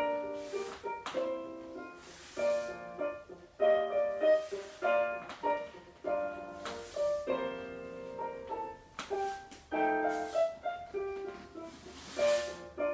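Solo piano music, a ballet-class accompaniment for a barre exercise, playing a melody over chords in a steady rhythm.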